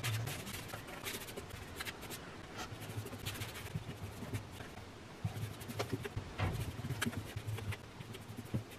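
Paintbrush strokes on wood: the bristles scratch and rub across a dresser panel as paint is brushed on, in a quick, uneven run of strokes.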